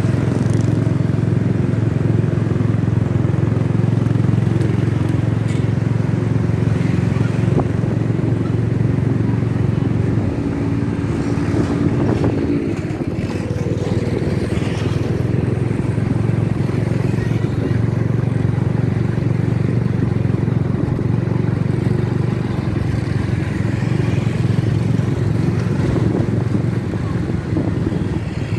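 A motorcycle engine runs steadily while riding through city traffic, over a haze of wind and road noise. It eases off briefly about twelve seconds in.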